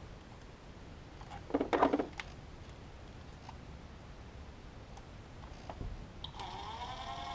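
Cordless impact driver's motor spinning up with a rising whine and running for about a second near the end, driving a screw back into the alternator housing. A brief rattle about one and a half seconds in.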